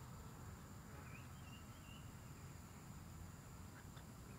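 Faint outdoor ambience: a few short bird chirps about a second in, over a low rumble and a steady faint high-pitched hum.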